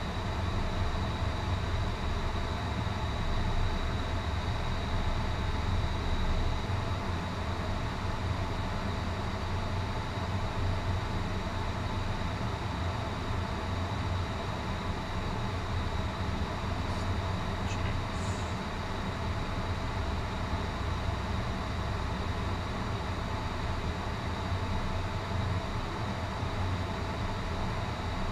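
Steady engine and airflow noise of an Airbus A321 heard from the cockpit, with a deep rumble that eases about six seconds in and a thin steady high whine throughout.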